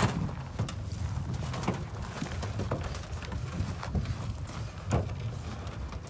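Irregular hollow knocks and thumps from a small metal rowboat's hull as people step into it and it is handled. There is a loud knock at the start and another about five seconds in.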